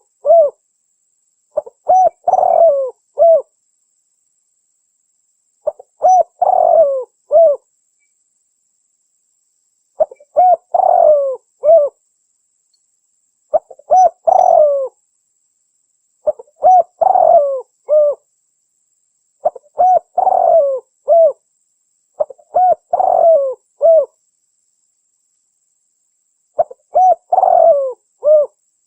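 Spotted dove (Spilopelia chinensis) calling. It repeats a phrase of several short cooing notes about every three seconds, with silence between the phrases.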